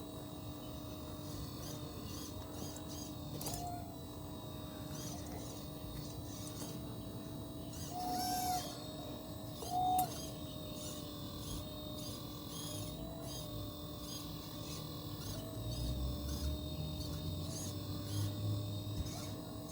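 The motors of a 1/12-scale RC excavator whine steadily, with the pitch stepping up briefly a few times, loudest about eight and ten seconds in. A deeper rumble joins in near the end.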